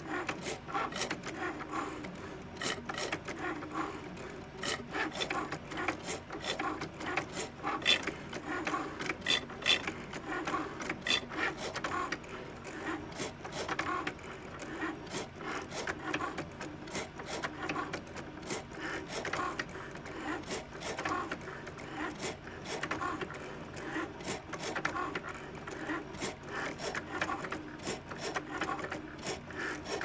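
Cricut cutting machine running a cut: its carriage and rollers make an abnormal rough grinding noise, continuous with rapid irregular clicks throughout, a sign that something in the machine is not right.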